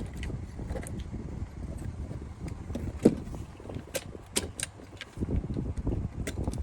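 Plastic clicks and knocks as a push-pin CPU cooler is pulled up off the motherboard and handled, with one sharp click about three seconds in.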